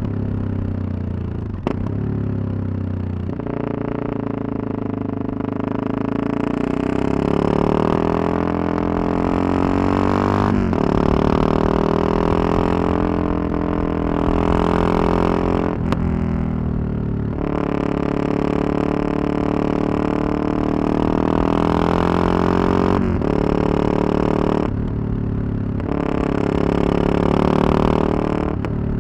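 Yamaha MT-03 660's single-cylinder engine riding and accelerating through the gears. The pitch climbs several times, and each climb is cut by a short break and drop as the next gear goes in. Wind rush comes and goes over the top.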